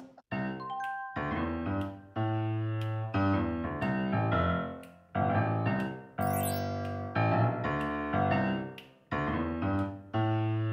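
Background music: a piano-like keyboard playing slow held chords, with a new chord about once a second, in phrases that fade away every few seconds.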